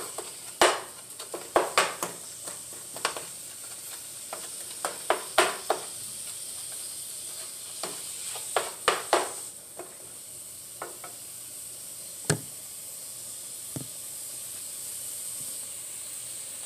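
Ground chuck sizzling steadily in a frying pan while a utensil clicks and scrapes against the pan as the meat is broken up. The clicking is busy for about the first ten seconds, then gives way to the sizzle alone, with one sharper knock partway through the quieter stretch.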